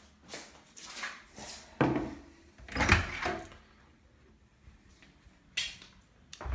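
Footsteps and household knocks, with a few soft knocks and two louder thumps about two and three seconds in, and another sharp knock near the end.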